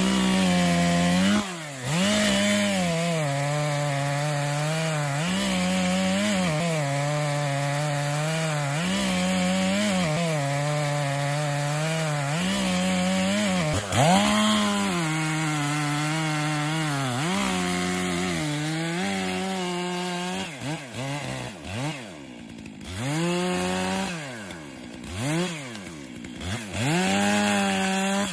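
Gasoline chainsaw running at high revs, its pitch sagging and recovering every couple of seconds as it is loaded in a cut. In the last several seconds the engine drops back and is revved in short blips before it stops.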